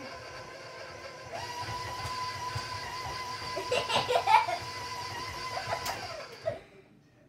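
Electric stand mixer running with its beater working butter in the steel bowl, a steady motor whir with a higher whine coming in about a second in. There is a burst of louder, sharper noises midway, and near the end the mixer is switched off and winds down.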